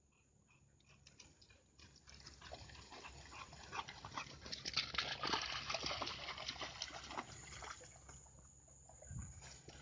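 A dog in water, with a dense patter of small splashes and sloshing that builds from about two seconds in and eases near the end.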